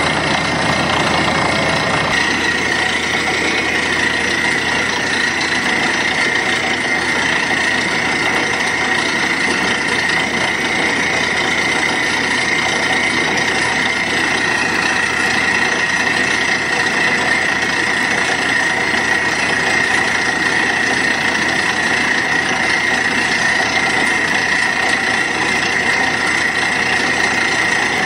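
Truck-mounted borewell drilling rig running while drilling, its rod turning in the hole as air blows rock cuttings and dust out: a loud, steady machine noise with a high whine over it.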